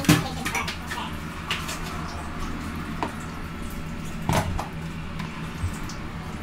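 A few sharp knocks and clicks of kitchen things being handled, the loudest right at the start and another pair about four seconds in, over a steady low hum.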